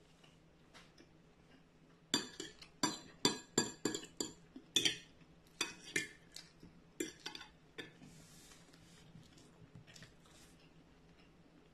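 Metal fork clinking and scraping against a ceramic plate: a quick run of sharp clinks from about two seconds in, a brief scrape, then a few softer taps.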